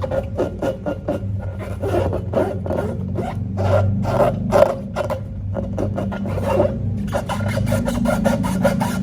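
Slime being worked by hand or with a tool: a quick run of short rubbing and scraping strokes, several a second, with a brief pause about seven seconds in.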